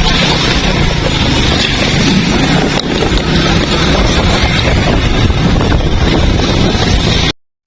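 Heavy rain pouring down in a strong windstorm, with the wind buffeting the microphone in a low rumble. It cuts off suddenly about seven seconds in.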